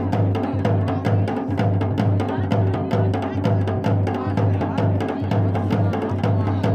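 Pahari dhol beaten in a steady, driving dance rhythm: deep bass strokes about twice a second, with sharper strokes in between.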